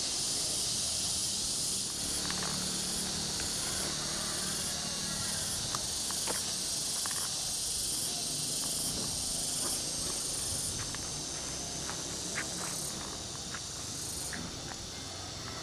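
Insect chorus: a dense, steady high-pitched buzz that swells and eases in level every second or so, with a few faint clicks.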